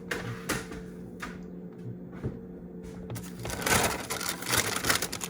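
A few light clicks, then from about three seconds in a dense crinkling rustle of handling, over a steady low electrical hum.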